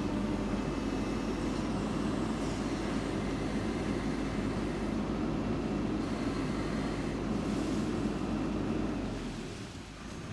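Backhoe loader's diesel engine running steadily under load while loading soil, easing off and quietening about nine seconds in.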